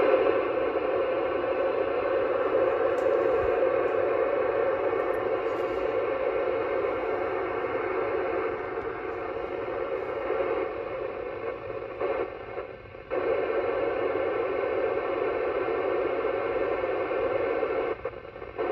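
Yaesu FT-991A transceiver playing the International Space Station's FM cross-band repeater downlink: a steady noisy signal with a faint buzz and no voice on it. It cuts out briefly about twelve seconds in and again right at the end.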